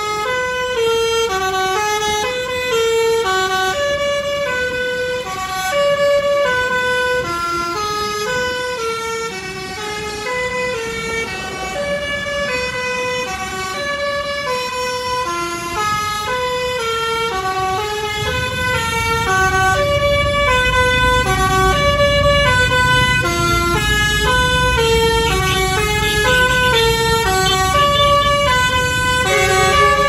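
Telolet basuri musical bus horn playing a tune of short held notes that step up and down in pitch. Under it a low rumble grows louder about two-thirds of the way in.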